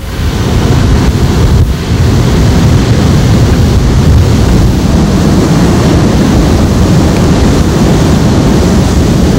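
Heavy storm surf breaking and hurricane wind buffeting the camcorder's microphone: a loud, steady, low rumble of wind and water.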